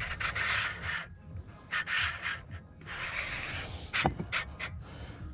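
Heavy, rhythmic breathing of an angler straining against a hooked fish, about a breath every second or so, with a sharp click about four seconds in.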